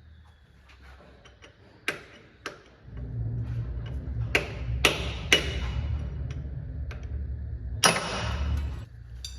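Hand tools working on a car's underside: scattered clicks, then a low rumble with four loud, sharp metal knocks that ring on briefly.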